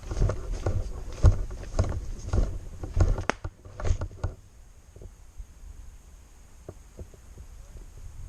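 Footsteps of a player moving quickly with gear rattling, a heavy thump about every half second, stopping about four seconds in; after that only a few light knocks.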